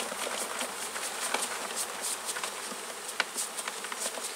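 Honeybees buzzing around an opened hive, with a string of short, scratchy strokes as bees are swept off a honey frame into a bucket.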